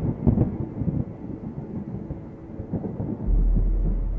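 Thunder rumbling with several sharp cracks, then a deep boom a little over three seconds in that lingers and slowly fades.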